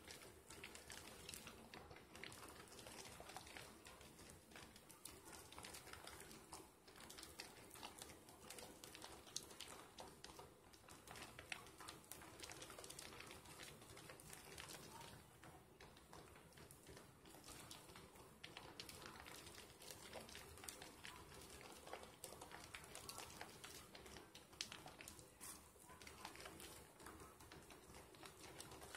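Faint, continuous wet squishing and crackling of soap lather as hands rub and knead a sliver of bar soap into foam.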